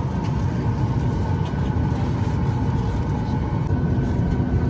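Jet airliner cabin noise: a steady low rumble from the engines and air system, with a few faint steady whining tones above it.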